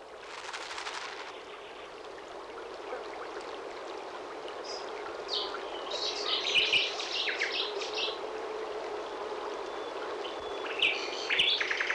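Birds chirping over the steady rush of a flowing stream, with the bird calls busiest in the middle and again near the end.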